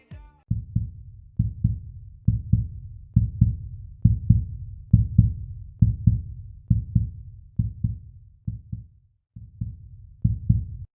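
Outro music: deep, muffled bass-drum beats in pairs like a heartbeat, about one pair a second, cutting off at the end.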